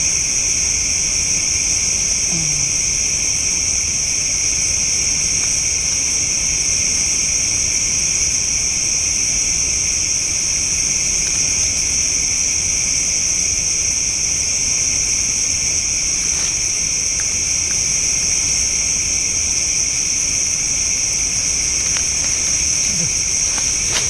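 Steady, high-pitched chorus of night insects, chiefly crickets, going on without a break.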